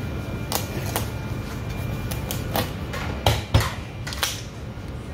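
Kitchen knife splitting a live lobster's shell on a cutting board: a run of sharp cracks and knocks, the loudest two about three and a half seconds in, over a steady hum.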